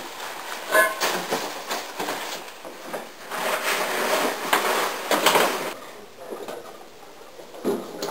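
Knocks, thumps and rustling of boys scrambling to hide: clambering over stacked plastic storage bins and hurrying down carpeted stairs, with a longer stretch of rustling and bumping in the middle.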